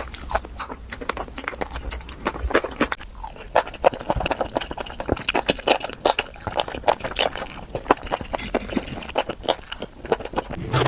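Close-miked chewing and biting of a sauce-covered hot dog: dense, irregular wet mouth clicks and crunches.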